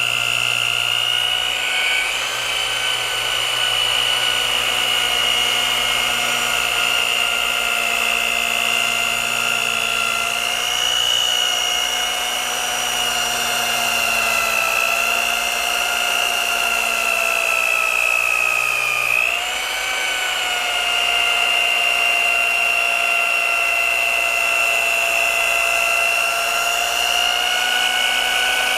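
Rotary polisher with a wool pad running steadily under load, compounding paint with a heavy-cut compound. A high whine whose pitch dips briefly and recovers about two-thirds of the way through, as the machine is bogged by pressure on the panel.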